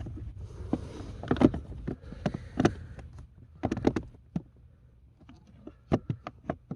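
Irregular sharp clicks and knocks with some rustling: the plastic cabin air filter and its housing being pushed and worked by hand behind the dashboard, trying to catch it into place. A low steady hum underneath fades out around the middle.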